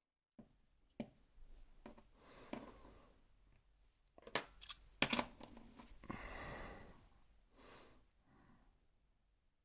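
Metal parts of a disassembled M&C Minos lock being handled, giving a few sharp clicks and clinks, the loudest about five seconds in, between stretches of scraping and rubbing.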